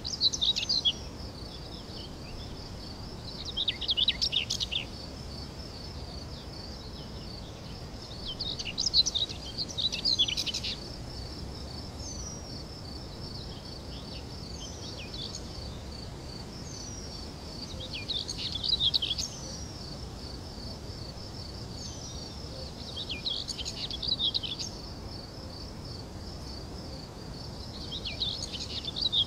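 A steady, rapidly pulsing insect trill like crickets, with clusters of quick bird chirps every four to six seconds and a few short falling whistles between them.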